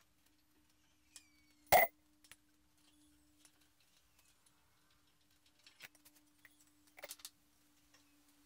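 Metal hand tool clinking against the aluminium rails and carriage plates of a CNC router frame during assembly: one loud sharp clank about two seconds in, scattered light clicks, and a quick run of clicks near the end, over a faint steady hum.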